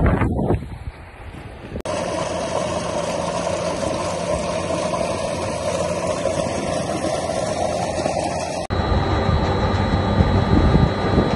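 Tubewell water gushing from its outlet pipe into a concrete tank in a loud, steady rush. Near the end it gives way to a lower, steadier hum from the tubewell's pump running down in the well shaft.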